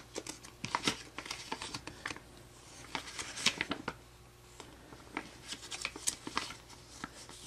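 Paper instruction booklet being handled and its pages turned: irregular crisp rustles and flicks of paper, with a brief lull about halfway through.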